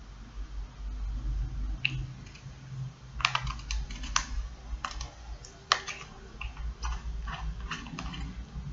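An irregular string of small sharp clicks and taps, starting about two seconds in, with the loudest near three and six seconds in, over a low hum.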